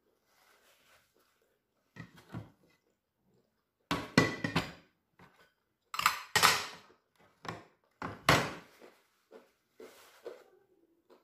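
Metal cutlery clinking and scraping against a plate during a meal, in a series of short sharp strikes, the loudest about four, six and eight seconds in.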